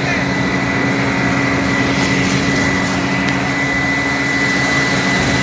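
A steady engine drone with a constant high-pitched whine over it, holding one speed throughout.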